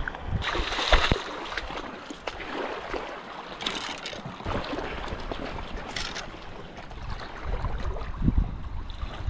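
Shallow seawater splashing as a fish is pulled from the water, then knocks and scraping as bow, arrows and a speared fish are handled on rock. Wind gusts on the microphone near the end.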